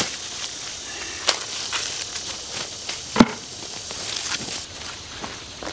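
Ears of sweet corn snapped off dry stalks by hand, with dry leaves and husks rustling; a few sharp snaps, the loudest about three seconds in.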